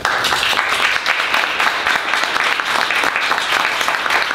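Audience applauding, starting suddenly at the end of a reading and going on steadily with many hands clapping at once.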